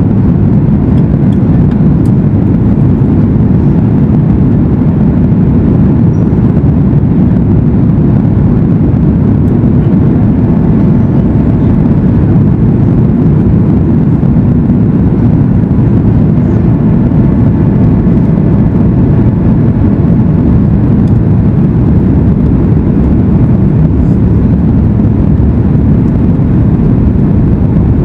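Steady, loud low rumble of a Boeing 737 MAX 8 in flight, engine and airflow noise, unchanging throughout.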